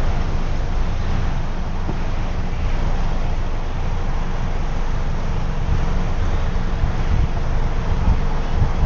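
Wind buffeting the phone's microphone: a steady, rumbling rush with no clear bird calls above it.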